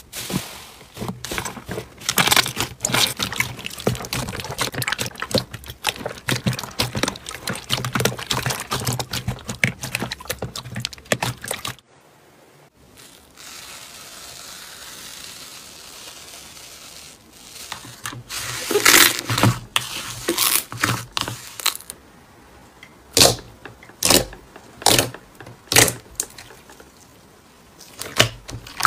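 Slime being pressed and poked by hand in a tub: dense crackling and squishing. Midway it goes to a quieter soft hiss, then a burst of loud crackles, and near the end separate sharp pops about once a second as glossy slime is folded.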